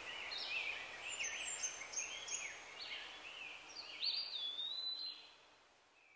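Songbirds singing, several at once, in overlapping short phrases, fading out about a second before the end.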